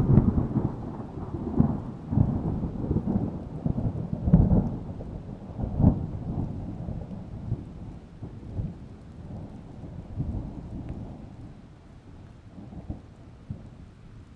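Rolling thunder over rain: a low rumble that swells in irregular peaks and gradually fades away.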